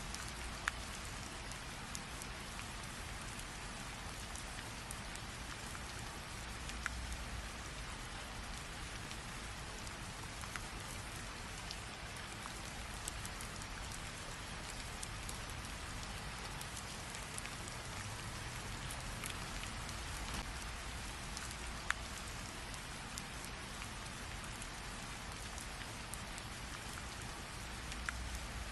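Steady rain falling, with individual drops ticking sharply against a surface now and then and a low rumble swelling faintly under it a few times.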